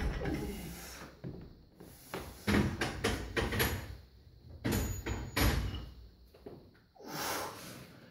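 Knocks and clanks of a loaded Olympic barbell and its plates as a weightlifter brings it down from overhead onto his shoulders and holds it in the front rack, with his feet on the platform: a knock at the start, clusters of sharp clanks about two and a half and five seconds in, then a longer rushing sound near the end.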